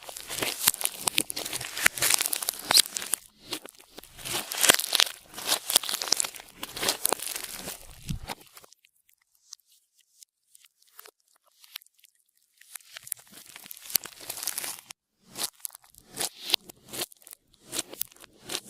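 Clear slime being squeezed and stretched by hand, with close crackling and tearing sounds. It goes quiet for about four seconds midway, then resumes as a series of short crackly squishes.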